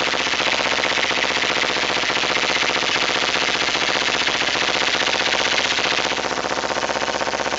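2008 Kawasaki Ninja 250R parallel-twin idling through an aftermarket Dan Moto exhaust, a steady, fast, even pulsing, freshly started after sitting three days; it drops slightly quieter about six seconds in. The bike has a high, wandering idle that the owner suspects needs a carburettor rejet.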